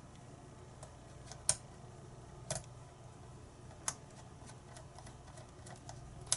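Scattered small clicks and taps of metal lock tools and lock parts being handled, four of them sharper and louder than the rest, over a faint steady hum.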